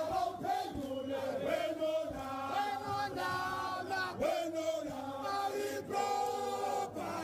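A crowd of delegates singing a factional song together in chorus, many voices chanting in unison.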